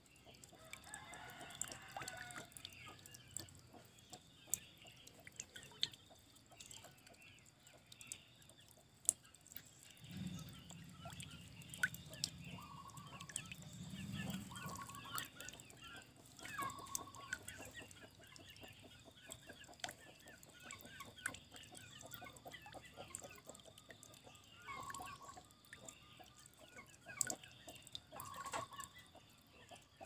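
Faint water trickling with scattered drips and small splashes, and chickens clucking now and then in short calls, with a longer call falling in pitch near the start. A low rumble comes in for a few seconds in the middle.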